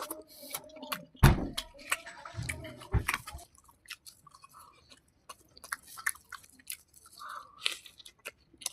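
Close-up chewing and crunching of food: irregular crackles and mouth clicks, with two heavier bites about a second and three seconds in, then quieter chewing.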